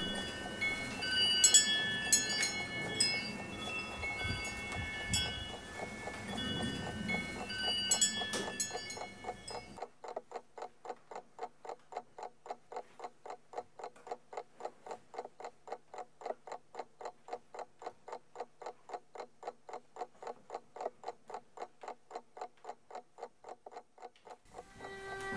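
Tinkling, chime-like tones at many pitches for about the first ten seconds. Then a clock ticking steadily, about three ticks a second, until near the end.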